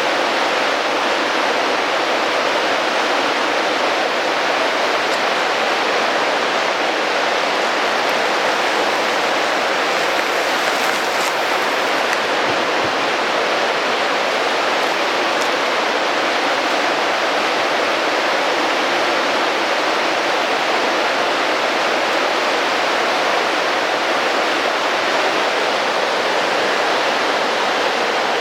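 Fast-running creek rushing steadily, a constant even wash of water noise.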